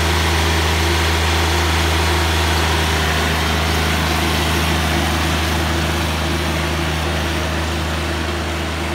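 Small tracked slope mower's engine running steadily, growing a little fainter over the last few seconds as the machine drives away.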